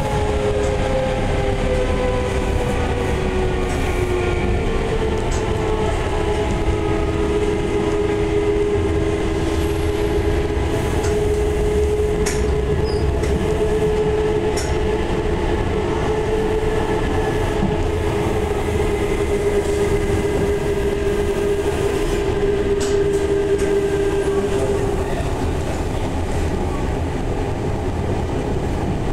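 Odakyu 30000 series EXE Romancecar running, heard from inside the car: the whine of its Toshiba IGBT-VVVF inverter and traction motors, sinking slightly in pitch at first and then steady, fades out near the end, over a steady wheel-and-rail rumble with occasional clicks of the wheels over rail joints.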